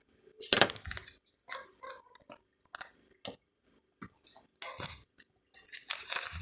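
A small sticker packet being worked open by hand: crinkling, rustling and small tearing sounds in irregular bursts, the loudest at about half a second in and again near the end.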